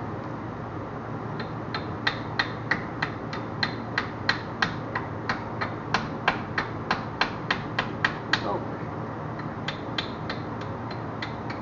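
A small hammer tapping on steel in quick, even strikes, about three a second, in two runs with a short pause about eight seconds in: chipping slag off a fresh stick weld.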